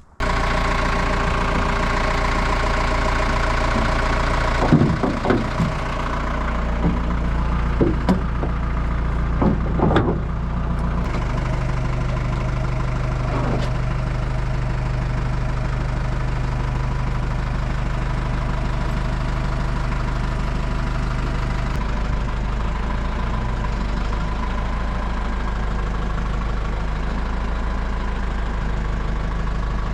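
An engine idling steadily, with a few sharp metal knocks in the first third.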